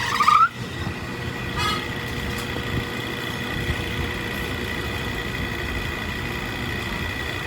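A machine running steadily with a high whine over a low rumble, after a short rising squeal right at the start.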